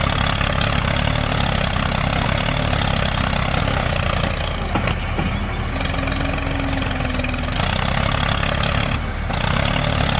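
Truck engine running steadily at idle, a low even drone, with a short higher hum about six seconds in.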